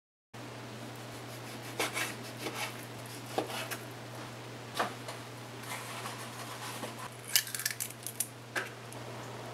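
Kitchen prep: a knife knocking through raw beef onto a plastic cutting board several times, then a quick cluster of clicks and cracks as an egg is broken over a glass bowl. A steady low hum runs underneath.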